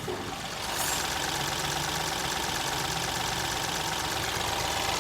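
Mahindra TUV300's three-cylinder diesel engine idling steadily on a cold start, a little louder from about a second in. It runs smoothly with no abnormal noise: the engine noise fault has been cured by the repair.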